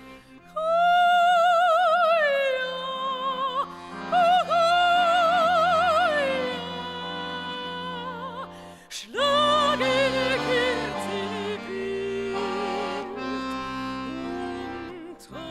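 Operatic soprano singing long, high held notes with wide vibrato over accordion chords, in three loud phrases with softer accompaniment between them.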